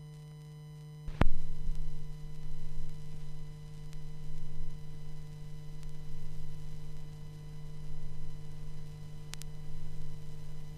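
Steady electrical hum, then a sharp click about a second in as a stylus drops onto a vinyl LP, followed by low rumble from the lead-in groove that swells and fades with the record's turn. Another click comes near the end.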